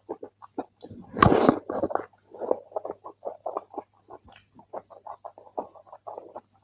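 Close-miked chewing of a mouthful of rice and kidney bean curry: quick, wet mouth sounds about four times a second, with one louder, longer noise about a second in.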